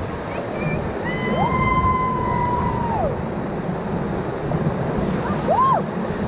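River rapids rushing steadily around a raft. Over the water, one long high-pitched whoop rises, holds for about two seconds and falls away, and a short rising and falling whoop comes near the end.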